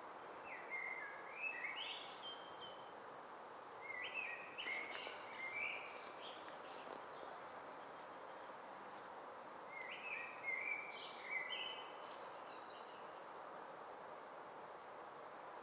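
A songbird singing three short phrases of quick stepped notes, about a second in, about four seconds in and about ten seconds in, over steady background noise.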